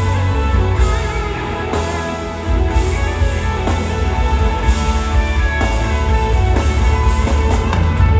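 Live rock band playing a slow ballad, led by sustained electric guitar lines over bass and drums at a slow steady beat. The low end grows louder about two and a half seconds in.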